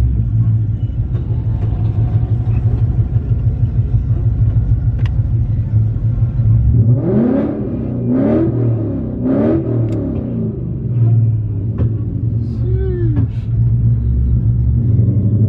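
A car engine idling with a deep, steady rumble, revved in three quick blips about halfway through and once more a few seconds later, each rev rising and falling in pitch.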